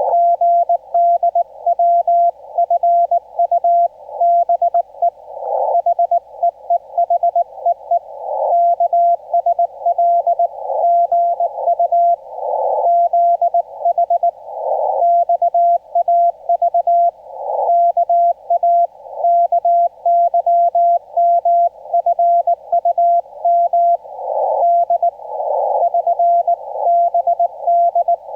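Morse code (CW) from an amateur radio transceiver, sent in Korean Morse: a single steady mid-pitched tone keyed on and off in dots and dashes. Between letters, band hiss swells up through the receiver's narrow filter.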